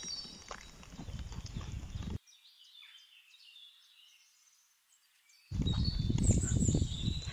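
Small birds chirping, with gusts of wind rumbling on the microphone. The rumble drops away for about three seconds in the middle, leaving only the chirps, then comes back loud.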